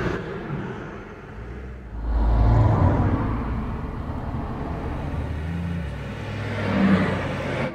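Road traffic: motor vehicles running and passing. There is a loud low rumble about two seconds in, and the engine sound swells again near the end.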